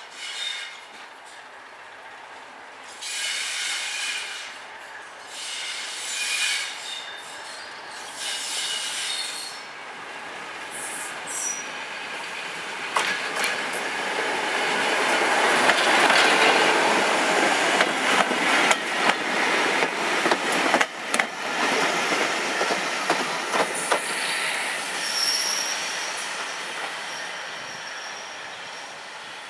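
A Class 205 'Thumper' diesel-electric multiple unit rounds a curve with its wheels squealing in several separate high spells, then passes close by. Its wheels clatter over rail joints with many sharp clicks, loudest about halfway through. Near the end a thin high squeal sounds as the unit slows into the station, and the noise fades away.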